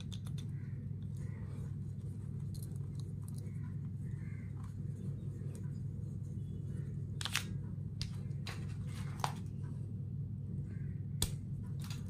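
Rotary coaxial cable stripper being twisted around an RG-59 coax cable, its blade scraping through the jacket with faint rustling, and a few sharp clicks in the second half. A steady low hum runs underneath.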